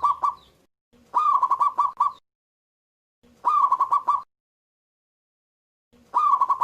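Zebra dove (perkutut) singing loudly: a repeated cooing phrase, each a rising first note followed by a quick run of short coos, coming about every two and a half seconds.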